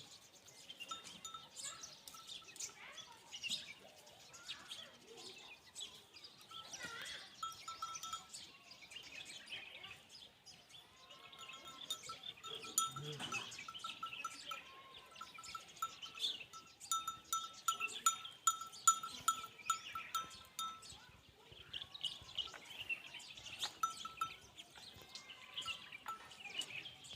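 Birds calling outdoors: many short high chirps, with a fast pulsing call on one steady note repeated in runs through the middle.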